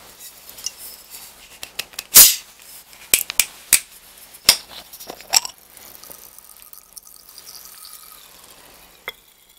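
Plastic bottle of sparkling water being twisted open: the screw cap clicks and crackles, with a brief loud hiss about two seconds in as the seal breaks. It goes quieter after about six seconds, with faint sips from the bottle near the end.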